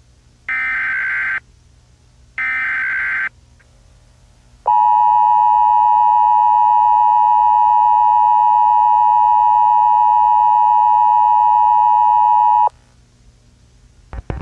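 Emergency Alert System broadcast tones: the last two of the three data bursts of the SAME header, each a buzzy burst of data tones lasting about a second. After a short gap comes the EAS two-tone attention signal, a steady harsh dual tone (853 and 960 Hz) held for about eight seconds, then cut off abruptly. This is the digital header and alert tone that precede the spoken message of an emergency alert.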